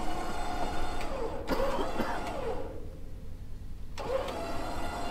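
Vehicle engine idling with a steady low rumble; the higher-pitched sounds drop away for about a second past the middle.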